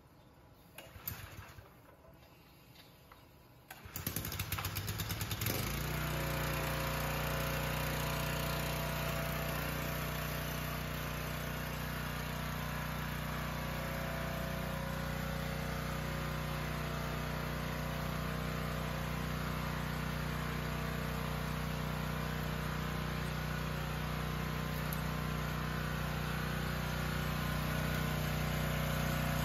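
Gas pressure washer engine starting: a short burst about a second in, then it catches about four seconds in and settles into a steady run. A steady spray hiss from a 20-inch water-recovery surface cleaner working the concrete floor runs under the engine.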